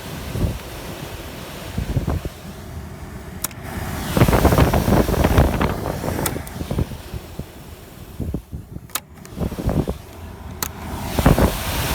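Heater/AC blower motor of a Mercedes-Benz W126 running on a new resistor module, its rushing air rising and falling in strength, loudest a few seconds in, with four sharp clicks along the way.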